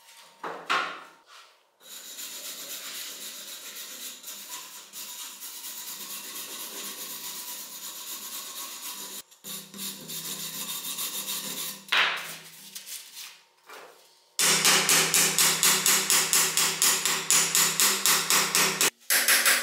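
Hand wire brush scrubbing heavy rust off iron scissors, with a knock or two. Then, from about two-thirds of the way in, a hammer taps quickly and evenly on the rusted iron blade, several strikes a second, knocking the rust scale loose. The hammering is the loudest part.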